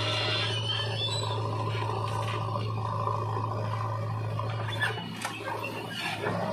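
Heavy diesel machinery running with a steady hum, which drops away about five seconds in. A backhoe bucket then dumps soil into a tractor trolley, with a few scattered knocks and thuds.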